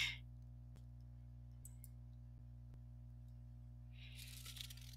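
Quiet room tone with a steady low electrical hum and a few faint clicks, then a soft breath drawn in near the end.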